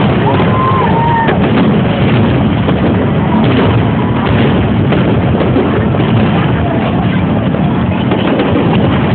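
Fireworks going off in rapid succession: a dense, continuous run of bangs and crackling, with crowd voices mixed in.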